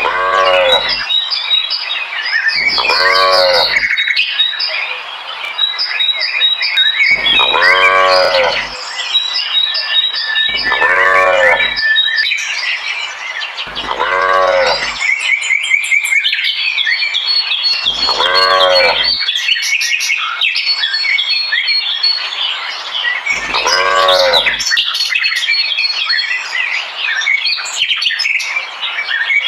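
Cows mooing: seven separate long moos, each about a second, rising and falling in pitch, spaced a few seconds apart. Small birds chirp and twitter steadily underneath.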